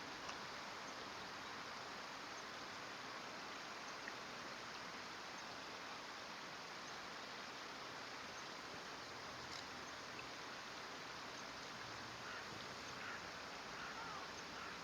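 Faint, steady rush of flowing stream water, with a few faint short chirps near the end.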